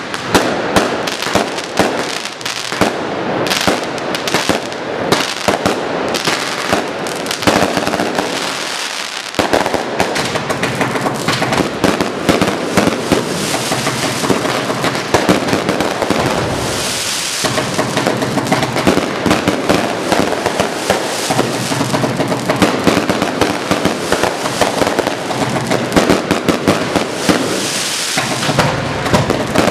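Fireworks: aerial shells and a Roman candle bursting and crackling, many reports overlapping in a dense, unbroken barrage.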